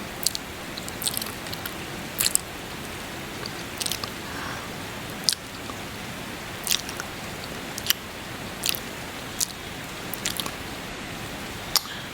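Close-miked kissing: short, wet lip smacks at irregular intervals, roughly one a second, over a steady hiss of rain.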